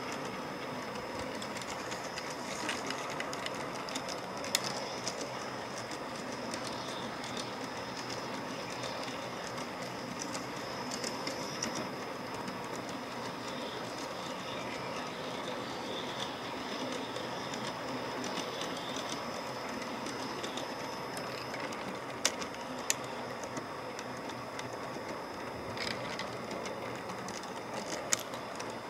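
Garden-railroad model train of coal hopper cars rolling along its track, heard from on board: a steady rolling clatter of the wheels on the rails, with a few sharp clicks, two of them close together about two-thirds of the way through.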